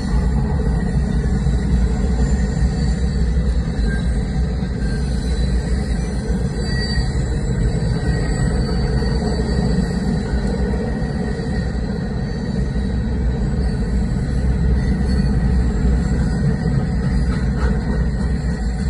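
Freight train of open-top hopper cars rolling past a level crossing: a steady rumble of wheels on the rails, heard from inside a car.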